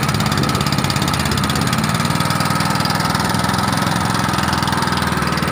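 A small engine idling steadily, with a rapid, even beat.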